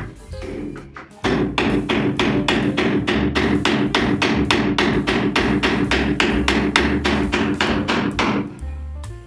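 Quick, steady strikes of a carpenter's hatchet on a wooden door frame, about five a second, starting about a second in and stopping near the end, over background music.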